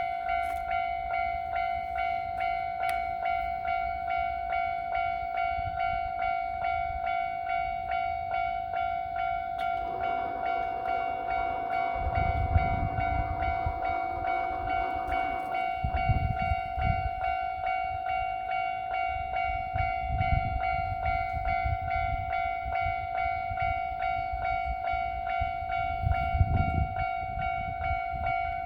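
Japanese level-crossing warning bell starts ringing suddenly, an electronic ding repeating rapidly and steadily. About ten seconds in, a train horn sounds for several seconds, and a Kintetsu train passes over the crossing with a low rumble and wheel clatter from about twelve seconds on.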